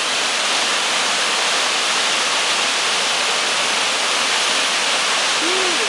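Waterfall: a steady rush of water falling over rock and running down a rocky stream.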